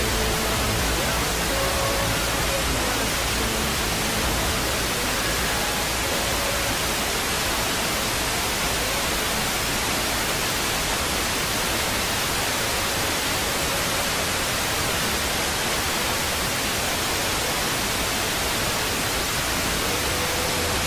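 Weak long-distance FM broadcast of Radio Dimensione Suono on 88.20 MHz, received via sporadic-E: steady radio hiss with faint fragments of music coming and going underneath as the signal fades.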